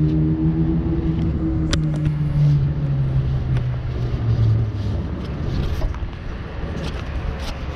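An engine's hum that drops slowly in pitch and fades out about five seconds in, over a steady low rumble, with a couple of sharp clicks.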